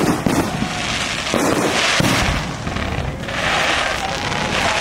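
Aerial fireworks going off in quick succession: repeated booms from bursting shells, with bouts of crackling from the star bursts.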